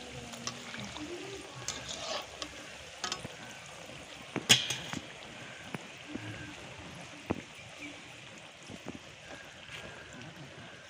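Adhirasam deep-frying in hot oil in an aluminium kadai, the oil sizzling and bubbling steadily. A sharp clink stands out about four and a half seconds in, with a few fainter clicks around it.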